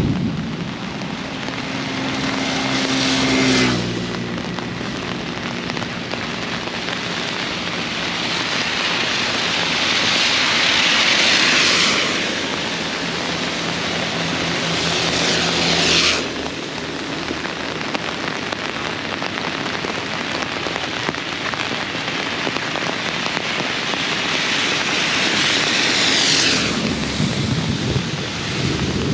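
Heavy rain pouring steadily, its hiss swelling and then dropping off sharply four times. A low engine hum from passing traffic sounds in the first few seconds and again midway.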